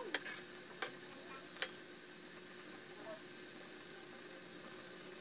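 Metal spoon stirring chicken adobo in an aluminium wok, knocking sharply against the pan about four times in the first two seconds. The sauce then simmers with a faint steady hiss.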